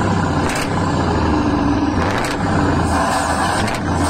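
Scania Streamline truck's diesel engine revved and held steady at high revs, heard right at the exhaust pipe as it is measured for loudness with a decibel meter.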